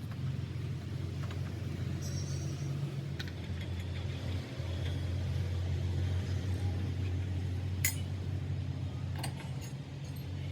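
A motor running steadily with a low hum, with a few sharp metallic clicks near the end.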